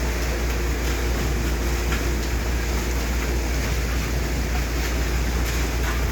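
Steady low drone of a machine's engine running at a constant speed, with an even rushing noise over it, typical of the machinery at a concrete pour.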